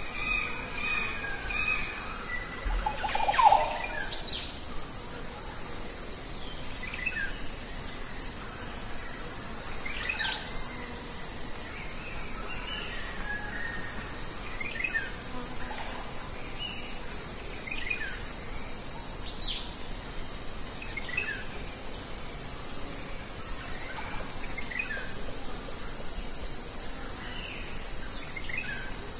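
Steady insect chorus of crickets trilling, with a bird's short falling chirps repeating every second or two. A brief louder, lower sound stands out about three seconds in.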